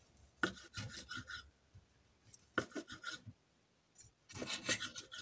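Kitchen knife sawing through cooked chorizo sausages on a wooden cutting board, in three short bouts of rasping strokes.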